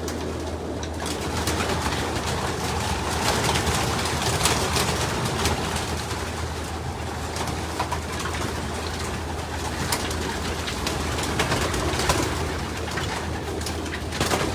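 Many racing pigeons cooing in a loft, with wings flapping and clapping and birds scuffling as they are chased to be caught.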